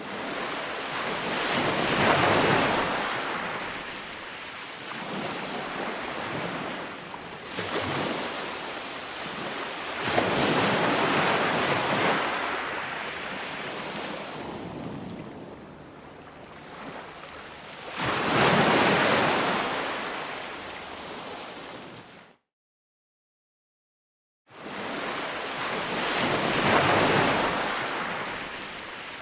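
Ocean waves breaking and washing in, a surge about every eight seconds. The sound cuts out completely for about two seconds near the end, then the waves resume.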